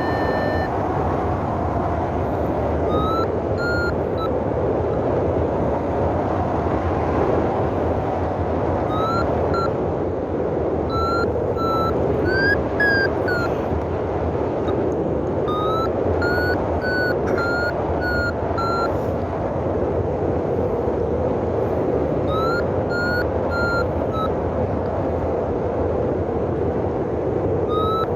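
Paragliding variometer beeping in several short runs of quick beeps that step up in pitch, the vario's climb signal that the glider is in lift. Steady wind noise rushes over the microphone underneath.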